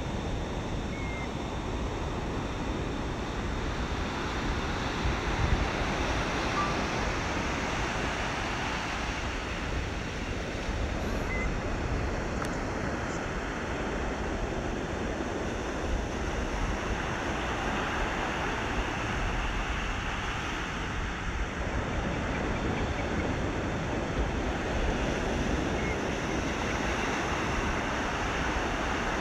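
Ocean waves washing in, with wind on the microphone: a steady rushing noise that slowly swells and eases.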